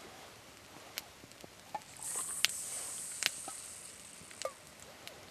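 Boiled water poured from a small metal camping pot into a steel mug: a soft pouring hiss for about two seconds, with a few light metal clinks of pot and mug before and after it.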